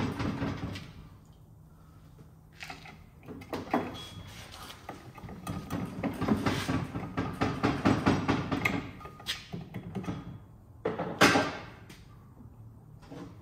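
Metal clanking and rattling from work on a VW Beetle engine's flywheel, densest in the middle, with one loud clatter about eleven seconds in.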